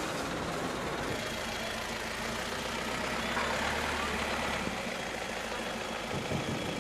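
A vehicle engine idling with a steady low hum over a wash of background noise.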